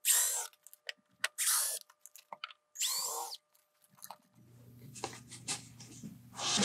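Cordless drill backing screws out of a plywood crate lid in three short whirring bursts, each rising and falling in pitch, with small clicks between. After that the loose plywood lid is rubbed and shifted by hand, building to a knock as it is lifted.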